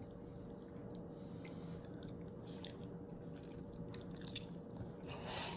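A person chewing mouthfuls of spicy instant noodles, with faint wet mouth clicks. There is a short, louder rush of noise near the end.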